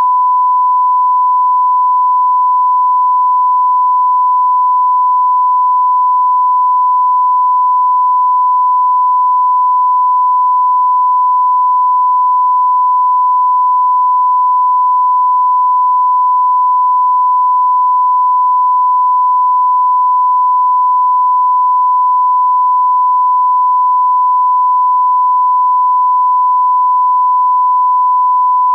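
Continuous 1 kHz sine test tone, one pure pitch held steady without a break, the reference tone that goes with a no-signal test screen.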